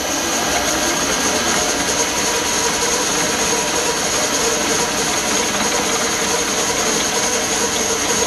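Electric drill running steadily, boring a 3.3 mm hole into the side face of a 6 mm alloy plate.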